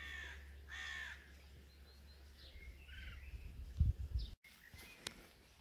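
A bird calling outdoors: two calls about a second apart near the start and fainter calls a couple of seconds later, over a low wind rumble on the microphone. A few low bumps of handling noise come near the middle, then the sound drops out for a moment.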